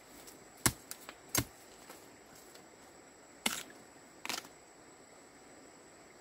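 A series of sharp knocks or snaps at irregular intervals: four in the first second and a half, then two more around the middle, over a faint steady high-pitched tone.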